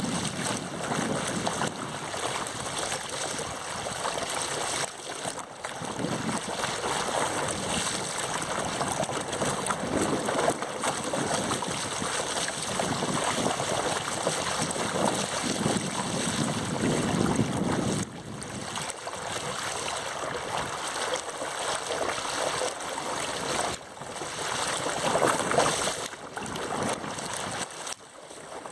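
Water rushing and splashing around a small camera sled skimming the surface, with wind on the microphone. The rush surges and drops away briefly a few times.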